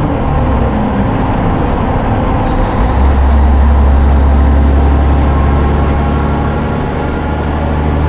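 Peterbilt 362 cabover semi truck rolling at highway speed. A low engine drone runs under tyre and road noise and grows louder about three seconds in.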